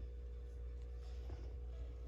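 A steady low hum, with a faint brief rustle a little past halfway.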